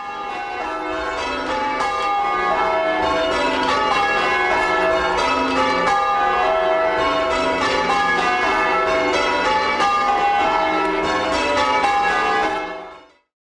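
Church bells ringing, a quick run of overlapping strokes that fades in at the start and fades out near the end.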